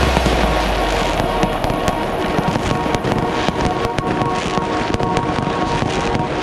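Many fireworks banging and crackling in rapid succession, with music playing underneath.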